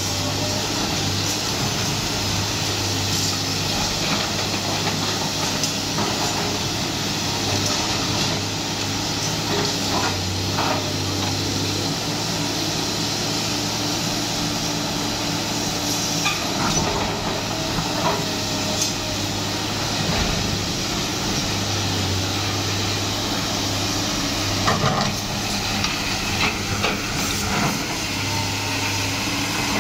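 Sany SY215C hydraulic excavator's diesel engine running steadily under load with a strong hydraulic hiss, as its demolition attachment works a concrete wall; sharp knocks and clatter of breaking concrete and falling debris come through several times.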